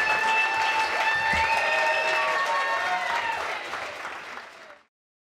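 Audience applauding and cheering, dying down and then cutting off into silence near the end.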